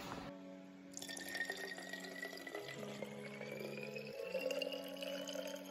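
Water poured from a plastic water bottle into a reusable drinking bottle, starting about a second in, with the pitch of the filling rising steadily as the bottle fills.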